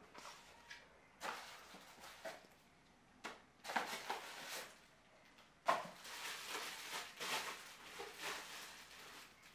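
Cardboard packaging and plastic wrap rustling and crinkling in hands as a camera is unboxed, in irregular bursts with a sharp crackle a little before the six-second mark.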